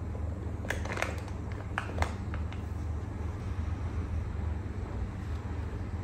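A few light clicks and rustles of small items being handled, clustered about a second in, over a steady low hum.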